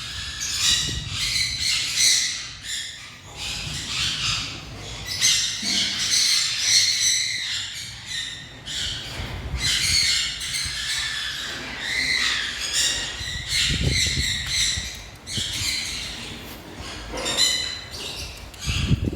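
Many caged birds chirping and squawking all at once in a constant, overlapping chatter of high-pitched calls.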